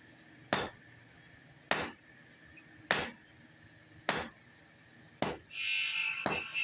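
Hand hammer striking red-hot leaf spring steel on an anvil, single blows at an even pace a little over a second apart. Near the end a steady, higher-pitched hissing, buzzing noise comes in under the blows.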